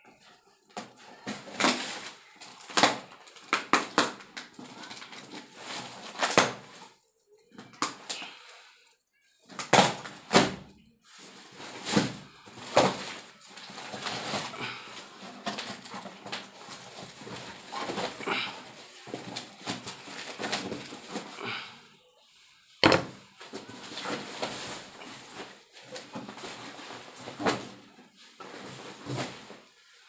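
Packing tape being ripped off a cardboard box and the cardboard flaps pulled open: an irregular run of sharp rips and scraping with short pauses, the loudest strokes about ten seconds in and again about 23 seconds in.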